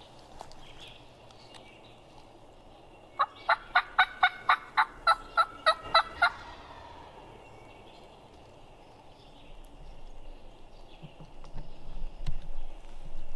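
Turkey yelping: a run of about a dozen evenly spaced yelps, about four a second, lasting some three seconds. Near the end a louder, rougher sound builds up.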